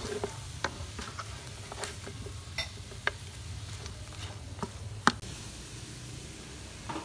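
Chicken pieces sizzling in a frying pan as a wooden spatula stirs them, with scattered scrapes and knocks of the spatula against the pan; the sharpest knock comes about five seconds in.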